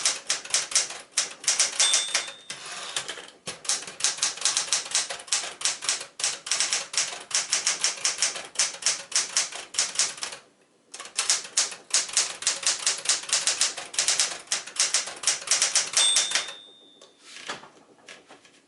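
Smith-Corona Galaxie Twelve manual typewriter being typed on at a fast, steady pace, keys striking the platen several times a second with two short pauses. The margin bell rings briefly twice, about two seconds in and again near the end, after which the typing stops and a few heavier clunks follow.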